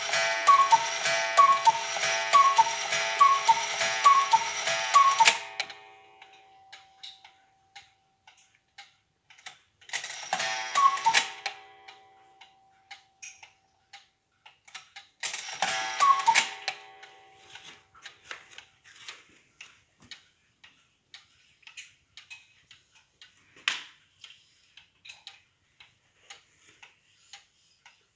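Antique cuckoo clock: the two-note cuckoo call repeats over a rushing bellows hiss at the twelve o'clock strike, then cuts off suddenly about five seconds in. After that the clock ticks steadily, with two more short cuckoo calls about ten and fifteen seconds in as the hands are turned by hand.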